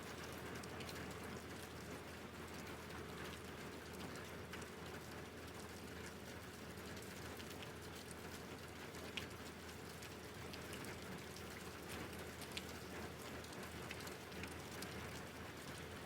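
Steady rain falling, with scattered sharper ticks of single drops striking a surface.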